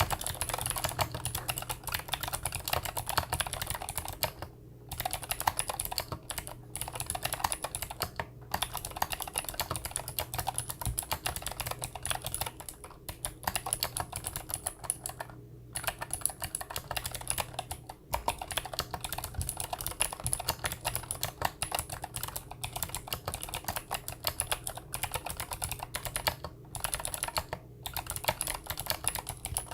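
Fast, continuous typing on a Monstargear NINJA87 mechanical keyboard with clicky Gateron Blue switches, a rapid stream of sharp key clicks broken by a few brief pauses.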